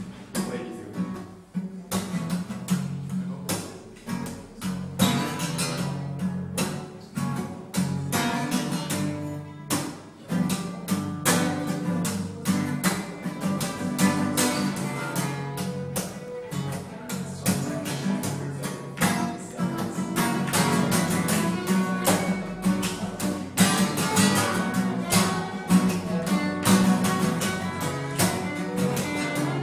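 Live acoustic trio: two steel-string acoustic guitars strummed in a quick, steady rhythm under a bowed fiddle melody, growing a little louder about two-thirds of the way in.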